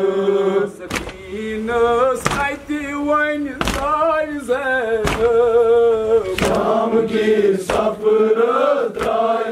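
Male mourners chanting a Kashmiri noha (Muharram lament) with long, wavering sung notes, over sharp rhythmic slaps about every two-thirds of a second: chest-beating (matam) in time with the lament.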